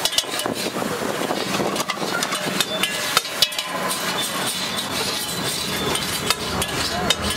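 Metal spatula clinking and scraping on a large flat iron griddle as eggs are spread and chopped, with many sharp taps scattered through. A steady sizzle of egg cooking runs under it.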